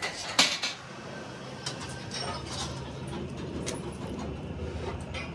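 Rolled steel rim bands clanking as they are handled and set down: one sharp metal clank about half a second in, then a few lighter clinks, over a low steady hum.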